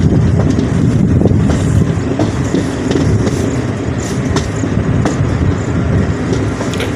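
Passenger train running at speed, heard from the open coach doorway: a steady rumble of wheels on rail, with scattered sharp clicks as the wheels pass over rail joints.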